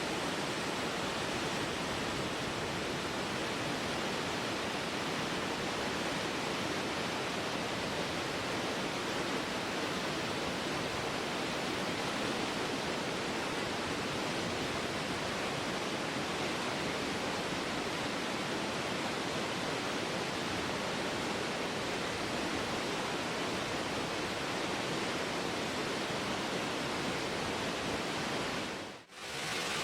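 Waterfall rushing: a steady, even roar of falling water that drops away for a moment near the end.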